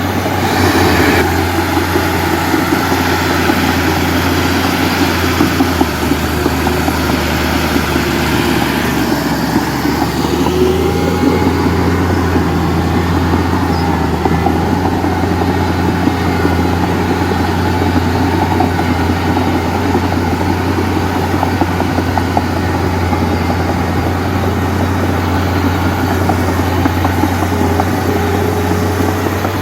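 Komatsu D31P bulldozer's diesel engine running steadily with a constant low drone.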